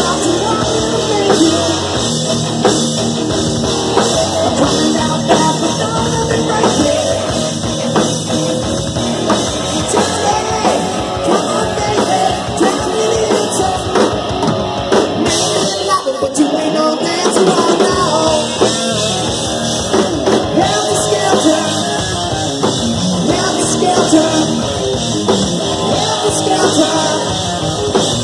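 Live rock band playing loud: distorted electric guitars and a drum kit, with a singer's vocal over them.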